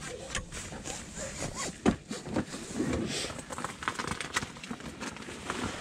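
Rustling with scattered short clicks and taps as gear is handled.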